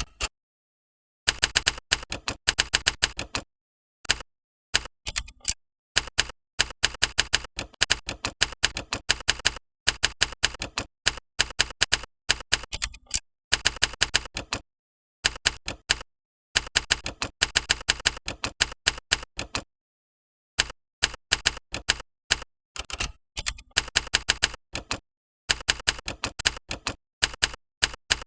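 Typewriter key-strike sound effects from Key Sound Generator software, one clack per keystroke as someone types on a PC. They come in quick runs of a second or two with short silent gaps between them, as the typing starts and stops.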